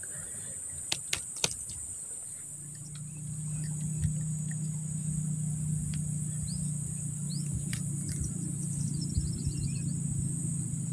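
Steady high-pitched drone of crickets, joined about two and a half seconds in by a low steady engine hum that becomes the loudest sound. A few light clicks come near the start, and short bird chirps and a brief trill come in the second half.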